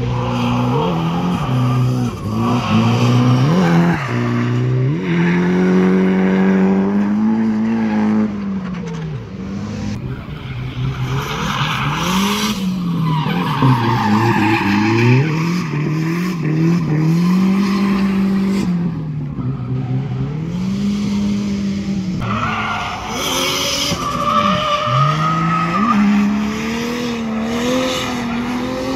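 Drift cars sliding through a hairpin, engines revving up and down over and over with tyres squealing.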